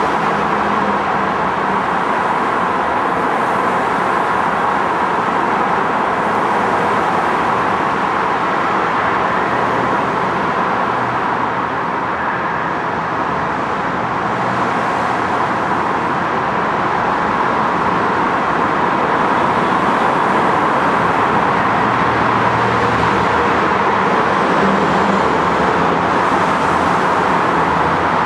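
Steady road traffic on a multi-lane highway: cars and trucks running by in a continuous wash of tyre and engine noise, with low engine hums that come and go.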